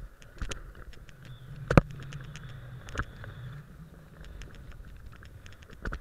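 A run down a groomed ski piste: edges scraping and hissing over packed snow, with scattered clicks and knocks. The loudest is a sharp knock just under two seconds in, and a low rumble runs through the middle.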